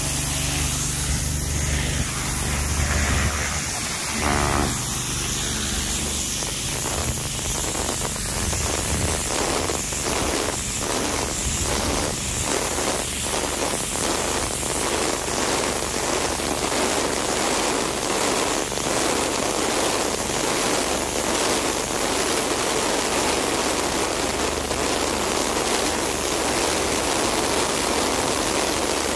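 Pressure-washer wand spraying a high-pressure jet of water onto a concrete walkway: a steady hiss of spray, with a low steady hum underneath.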